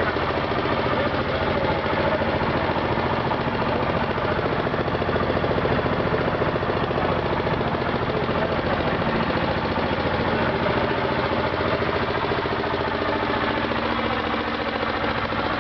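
Engine of a covered passenger launch running steadily, with a rapid, even pulse.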